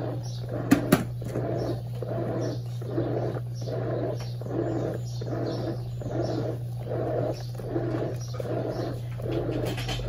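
Brastemp Eggo 1 kg mini washing machine agitating its load in water, in even strokes about one and a half per second over a steady motor hum. Two sharp clicks about a second in.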